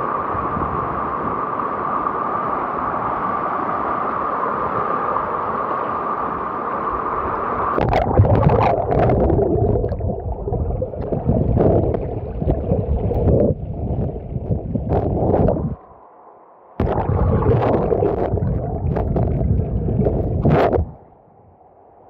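Floodwater rushing steadily over a road. About eight seconds in, the sound turns louder and uneven, with knocks and low rumble like wind buffeting or handling on the microphone. It cuts out briefly twice near the end.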